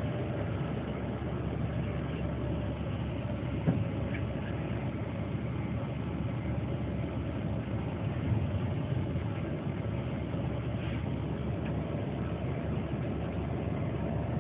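Steady engine and road noise heard from inside a bus crawling slowly in traffic, with two brief knocks a few seconds apart.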